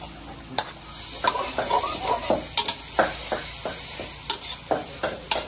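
Ant eggs sizzling in a pan while a long-handled metal spatula stirs and scrapes the pan, giving irregular scraping clinks about two or three a second over a steady sizzle.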